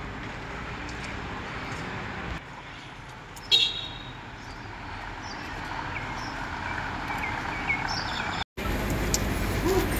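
Outdoor ambience with a steady low hum of traffic, broken about three and a half seconds in by one short, sharp horn toot.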